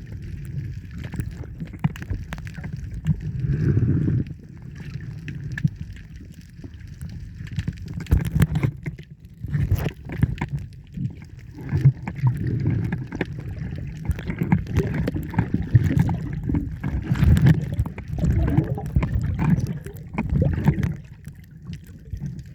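Muffled water sloshing and gurgling around a camera in the sea, an uneven low rumble broken by irregular knocks and splashes.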